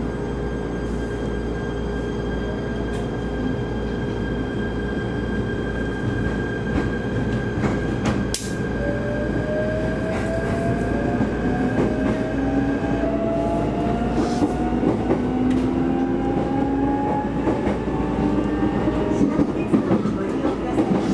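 Shinano Railway SR1 series electric train running, heard from inside the carriage: a steady hum, a sharp knock about eight seconds in, then the motors' whine rising slowly in pitch as the train accelerates.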